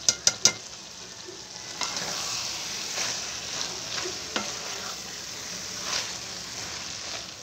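Potato and spinach curry sizzling in oil in an aluminium pan, the oil having separated out of the vegetables, while a wooden spatula stirs it, scraping and knocking against the pan now and then. A quick run of three or four sharp taps comes at the very start.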